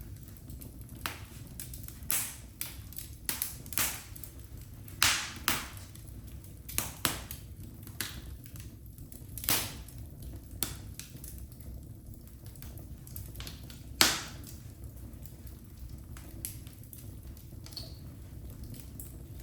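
Wood fire crackling in a fireplace: irregular sharp pops and snaps over a steady low rumble of the flames, the loudest pop about fourteen seconds in.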